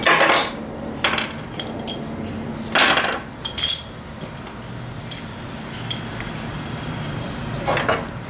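Metal handling sounds from an airsoft Uzi's CO2 magazine as its spent cartridge is unscrewed and changed: a hex key and metal parts clinking and scraping in several short bursts, the last one near the end.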